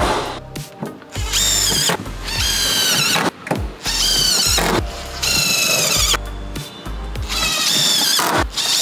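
Power drill driving screws in about six short runs of roughly a second each. In each run the motor whine spins up, holds steady, then drops in pitch before it stops.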